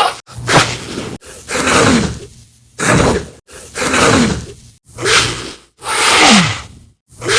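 A quick run of short human vocal sound effects, breaths, sighs and grunts, several with a falling pitch, played one after another with a brief silence between each, about seven in all.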